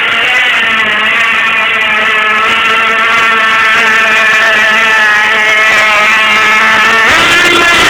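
Kyosho Fazer 1/10 nitro RC car's two-stroke glow engine running with no exhaust header fitted, giving a loud, steady buzz whose pitch wavers slightly. Near the end the revs change quickly.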